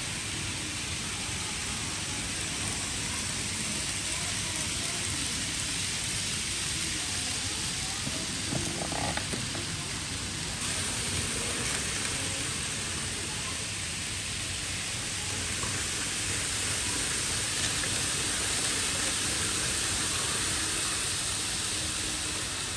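N-gauge model trains running around a layout's track, heard as a steady even noise with no clear rhythm.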